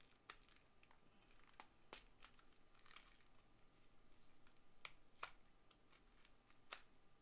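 Near silence: room tone with about seven faint, scattered clicks.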